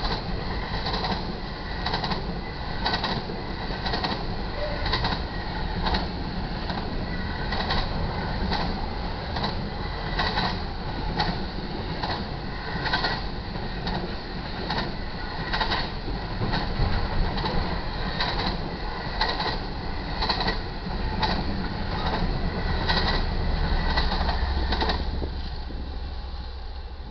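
BNSF intermodal freight train passing: a steady rumble with wheels clicking over the rail about once a second. Near the end the rear GE ES44DC distributed-power locomotive's diesel engine hums low and loud as it goes by. The clicking then stops and the sound fades away.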